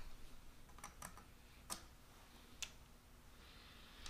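A few faint, light metal clicks about a second apart: small steel cap screws and the collet chuck being handled at a stopped lathe.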